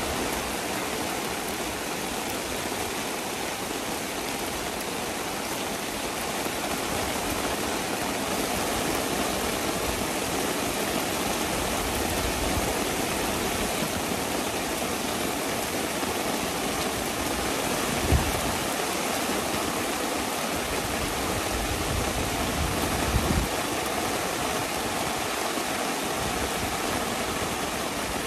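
Heavy rain falling steadily, an even hiss with no break. Two brief low thumps stand out in the latter half.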